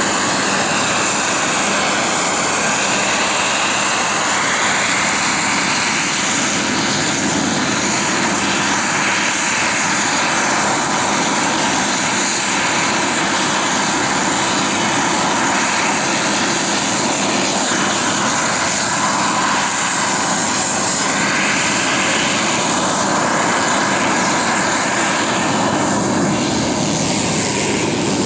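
Radio-controlled scale Hughes 500 model helicopter running steadily, its motor and rotors making a constant whine whose pitch shifts as it flies and hovers. The pitch drops near the end.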